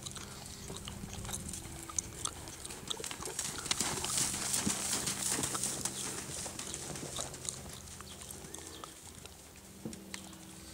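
A horse trotting on a soft dirt arena: a run of muffled hoofbeats in the sand, louder as the horse passes close about four to six seconds in.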